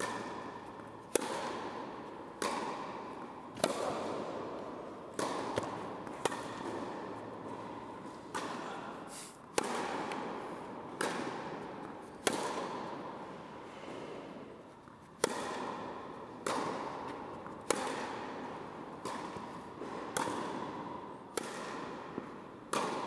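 Tennis rally: a tennis ball struck back and forth by rackets, a sharp pop roughly every second and a bit. Each hit echoes long in a large indoor tennis hall.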